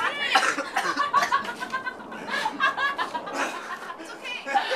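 A small group of people laughing and chuckling, mixed with indistinct talk.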